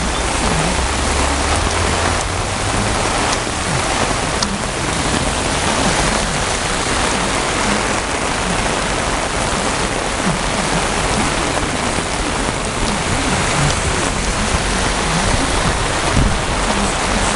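Heavy rain pouring down steadily, mixed with the rush of floodwater.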